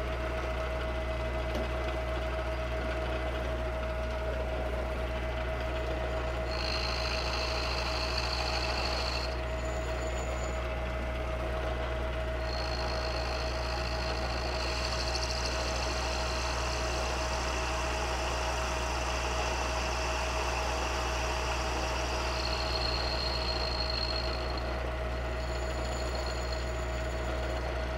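Milling machine running an end mill at about 700 RPM, taking a deeper cut into cast iron: a steady motor hum with a steady tone. A higher-pitched cutting noise comes in about six seconds in, drops out around nine seconds, and returns from about twelve seconds to twenty-four seconds.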